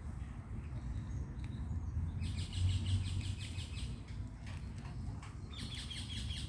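Birds calling in two bouts of fast, chattering notes, the first about two seconds in and the second near the end, over a steady low rumble.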